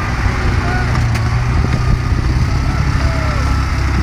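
A vehicle engine running steadily at a low rumble, with faint voices in the background and a single click about a second in.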